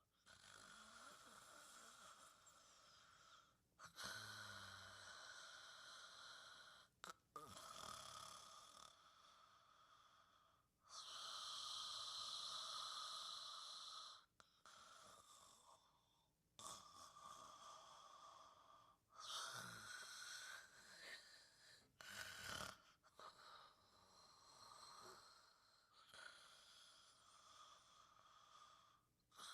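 Gentle snoring during sleep: a slow run of soft, hissy breaths, each lasting a few seconds.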